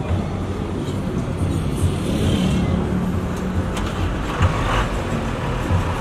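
Pneumatic-tyred road roller's diesel engine running as the roller moves slowly over fresh asphalt, a steady low rumble.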